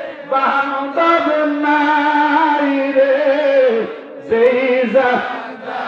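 A man singing a Bangla devotional song in slow, drawn-out phrases. He holds long notes that waver in pitch, with short breaks for breath between phrases.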